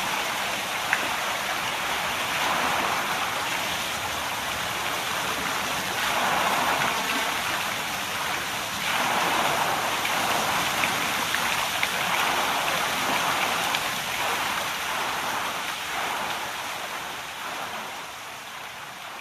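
Steady rushing water, swelling louder a couple of times and fading out near the end.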